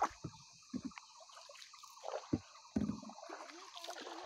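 Small canoe being paddled: light water trickling and splashing from the strokes, with scattered short knocks.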